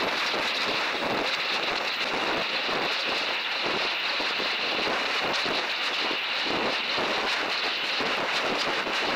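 Steady rushing wind noise on the microphone of a camera inside a high-altitude balloon's payload box in flight, with a faint, steady high tone underneath.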